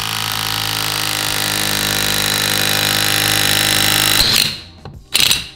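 DeWalt cordless impact driver hammering a socket on a bolt of a VW T1 steering box: one long steady run that stops about four seconds in, then a short second burst near the end.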